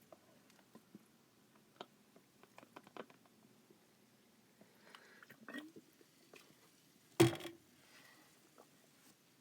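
Quiet mouth and bottle sounds of someone sipping and swallowing sparkling water: scattered faint clicks and small ticks, then one loud short thump about seven seconds in.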